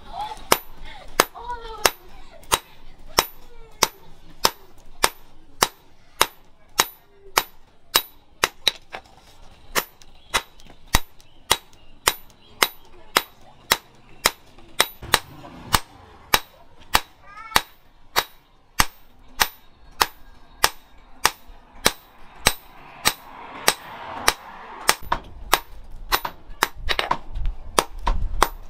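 Hand hammer striking a red-hot steel knife blank on a post anvil, a steady rhythm of sharp ringing metal blows, a little under two a second.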